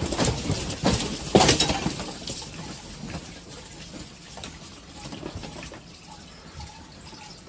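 Clear plastic reptile tubs and their shelving rattling and clattering as an earthquake shakes them. The rattling is loudest in the first two seconds, then settles to a lighter, uneven rattle.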